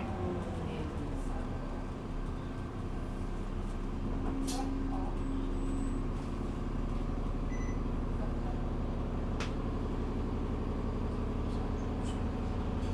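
Alexander Dennis Enviro 400 bus engine heard from the passenger saloon: its revs fall away in the first moment, then it runs at steady revs with an even drone. Two brief sharp rattles cut through, the first a few seconds in and the second about three-quarters of the way through.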